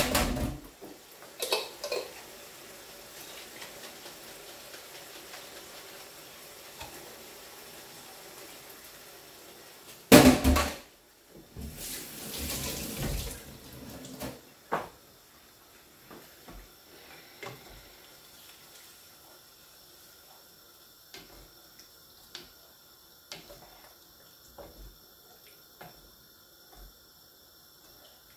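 Cooking sounds at a stove: pots, pans and lids clattering loudly at the start and again about ten seconds in, water running for a couple of seconds, then light taps and scrapes of a wooden spatula stirring stew in a frying pan.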